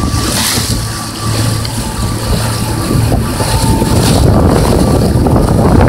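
Jet ski running under way across choppy water, its engine a steady low drone, with wind rumbling on the microphone and water rushing and splashing at the hull.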